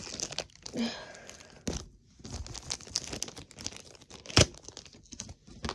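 Mystery-figure packaging being torn and crinkled open by hand: crackling with many small sharp clicks. There is one louder knock about four seconds in.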